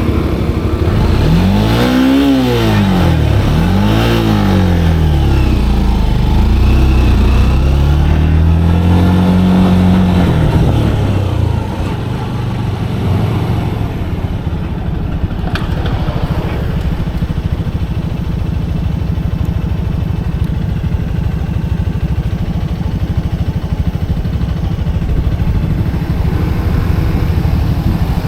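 Motorcycle engine revving up and dropping back twice in quick succession, rising again for a couple of seconds, then settling to a steady lower running note for the rest of the time.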